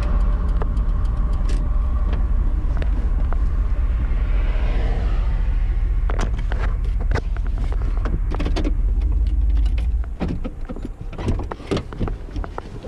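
Chevrolet truck driving, heard from inside the cab: a steady deep rumble of engine and road that drops away about ten seconds in as the truck slows. Scattered clicks and knocks come over it in the second half.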